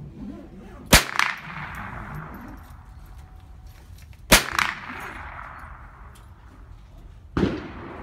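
Three single shots from a Marlin Model 60 .22LR semi-automatic rifle, fired slowly about three seconds apart. Each crack is followed a moment later by a weaker second crack and a fading ring.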